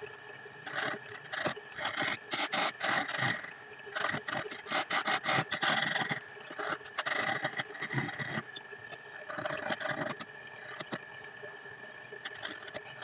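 Hand turning chisel cutting a spinning wooden spindle on a belt-driven lathe: repeated bursts of scraping as the tool bites the wood, easing off about ten seconds in, over the steady high whine of the lathe's electric motor and belt.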